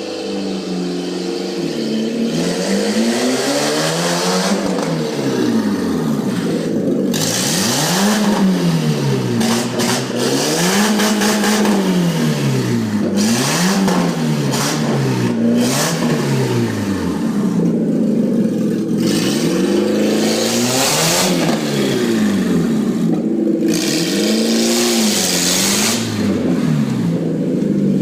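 Volkswagen Polo 86c four-cylinder engine running with an open manifold and no exhaust system, loud and raw, revving up and falling back again and again as it is driven. Short crackling pops come through here and there as the revs drop.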